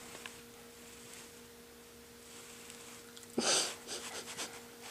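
Faint steady electrical hum, with a short, sharp snort from a small schnauzer about three and a half seconds in.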